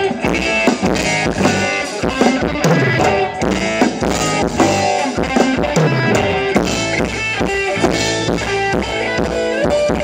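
Live band music with a steady drum-kit beat and guitar.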